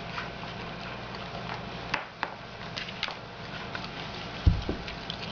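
Beagle chewing an edamame pod and working the beans out of it: scattered small clicks and crunches, with one louder low thump about four and a half seconds in.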